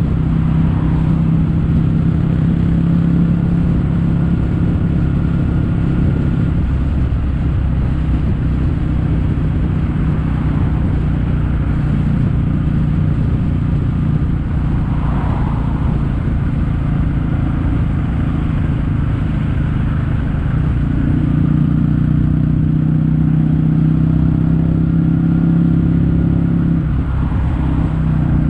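Kawasaki W800's air-cooled parallel-twin engine exhausting through Yamato stainless-steel Cabton-style silencers with their standard baffles, heard while the bike is ridden at a steady cruise. A steady, low exhaust note that firms up a little about two-thirds of the way through.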